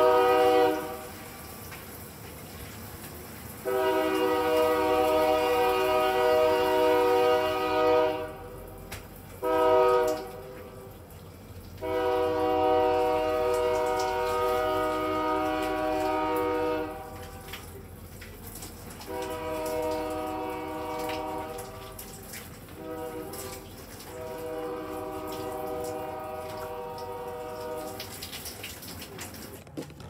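Diesel locomotive's multi-chime air horn sounding the grade-crossing signal: long blasts, a short one, then a long one. The same long–short–long pattern repeats more faintly in the second half, over a low engine rumble.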